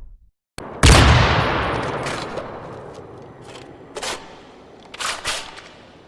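A single gunshot sound effect, a loud blast about a second in with a long echoing fade, followed by a few short sharp metallic clinks.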